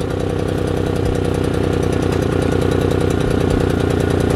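PowerSmart 1500 inverter generator's small gasoline engine running steadily with a fast, even pulse, just started with the choke partly on.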